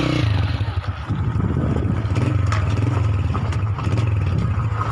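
A vehicle engine running steadily with a low drone while driving along a rough dirt mountain track, heard from on board, with a few light knocks.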